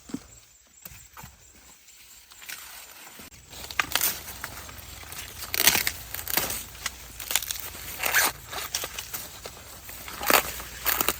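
Dry corn leaves and stalks rustling and crackling, with irregular sharp snaps, as ears of corn are picked by hand. The rustling grows louder about four seconds in.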